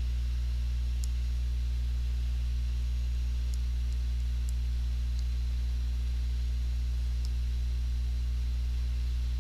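Steady low electrical hum with a few overtones and a faint hiss, unchanging throughout, with a few faint, short high ticks scattered through it.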